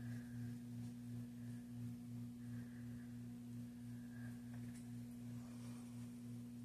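A faint, steady low electrical hum, with a second, higher steady tone above it and a slight regular pulsing in the lower tone.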